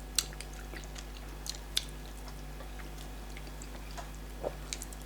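Eating sounds of starch and black soup being chewed: scattered wet mouth clicks and smacks. A steady low electrical hum runs underneath.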